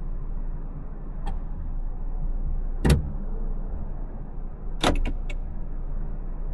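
Steady low rumble of a car heard from inside the cabin, with a faint click, then one sharp knock about three seconds in, and a quick run of four clicks about five seconds in.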